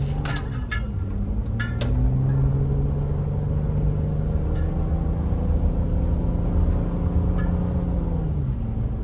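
Car engine heard from inside the cabin while driving on snowy roads: the engine note rises as the car picks up speed, holds steady for several seconds, then drops away near the end as the throttle is eased, over a steady low road rumble. A few sharp clicks sound in the first two seconds.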